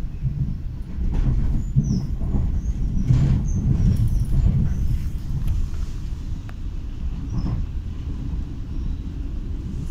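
Inside a moving regional electric passenger train: a steady low running rumble of the wheels on the track. A few short high squeaks and occasional knocks come in the first few seconds.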